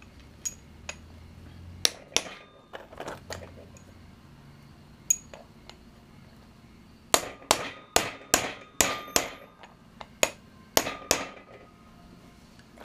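A hammer taps a steel socket extension used as a drift, driving a floating wrist pin through a forged connecting rod and piston. A few scattered taps come first, then a quicker run of about a dozen sharp metallic taps, roughly three a second, with a faint ring.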